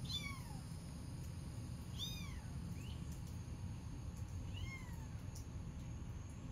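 Young black-and-white kitten mewing in short, high-pitched squeaks, three clear calls a couple of seconds apart, each rising and then falling in pitch. These are the calls of a kitten wanting its mother.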